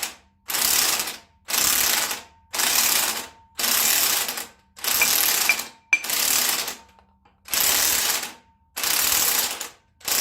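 Impact wrench hammering the centre bolt of a harmonic balancer puller on a small-block Chevy 350 crankshaft, run in short bursts of under a second with brief pauses between them, about nine times. Each pulse is a shock followed by a rest to work the stuck balancer loose.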